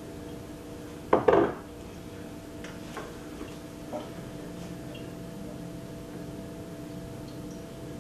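A brief clatter of kitchenware being handled at the sink about a second in, followed by a few light clicks and taps, over a steady low hum.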